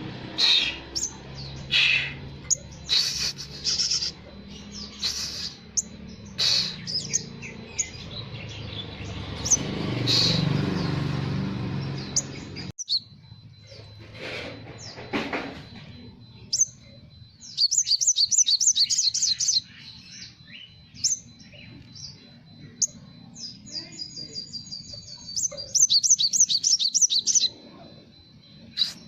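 Caged sunbird singing: a busy string of short, high chirps and whistles, with fast chattering trills about two-thirds through and again near the end. The song is filled with mimicked Java sparrow notes.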